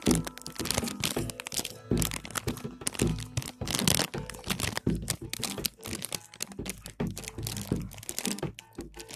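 A dog rummaging with its head inside a Cracker Jack bag. The packaging crinkles and crackles, with irregular knocks and thuds all through.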